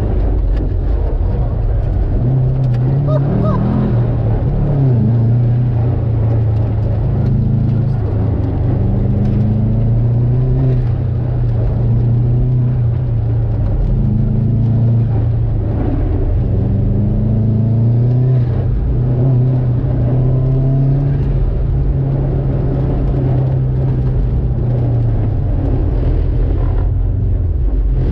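Turbocharged Subaru Impreza GC8 flat-four engine under hard driving, its pitch climbing and falling back every couple of seconds as the throttle is worked through a run on a wet track.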